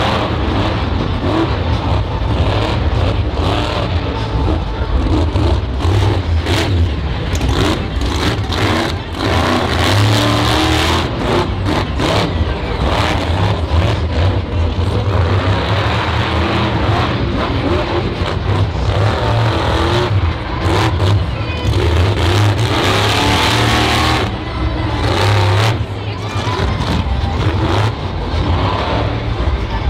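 Bandit monster truck's supercharged V8 engine revving hard, rising and falling again and again as the truck is driven over the dirt jumps.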